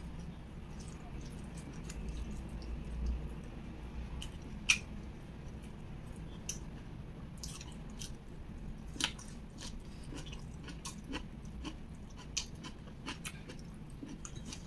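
Close-miked chewing and biting of boiled kailan (Chinese broccoli) leaves dipped in sambal: short crisp mouth clicks and smacks, one sharp one about a third of the way in and more frequent ones in the second half.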